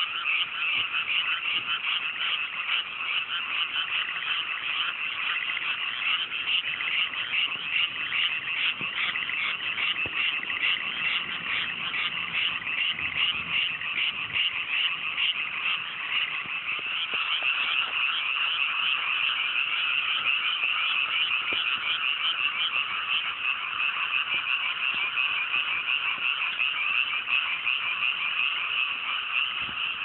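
A dense chorus of many frogs calling at once, a continuous mass of fast-pulsing croaks with no let-up.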